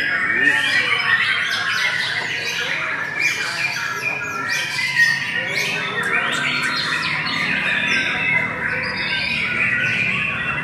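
White-rumped shamas singing at once: a loud, dense, unbroken stream of rapid, overlapping whistled notes and calls.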